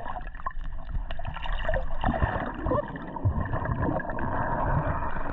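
Muffled underwater gurgling and churning of swimming-pool water, heard from a camera held under the surface, with irregular low thumps.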